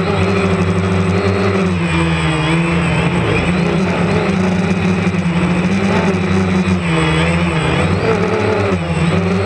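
DJI Phantom 2 Vision+ quadcopter's motors and propellers whirring steadily, the pitch wavering up and down as the motors change speed in flight.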